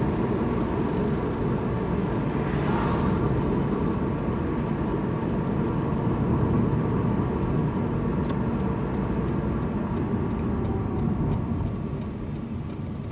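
Steady car cabin noise while driving: a low engine and road rumble with no sudden events, easing slightly near the end.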